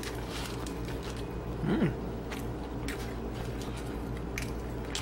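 A slice of cheese-and-pepperoni pizza being pulled from the pie by hand, giving faint crackles and ticks of crust and paper over a steady low hum. About two seconds in there is a short pitched sound that rises and then falls.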